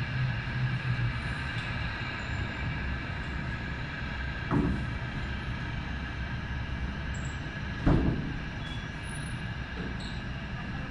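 Aircraft engines running steadily: a high whine held over a low rumble, with two short thumps about four and a half and eight seconds in.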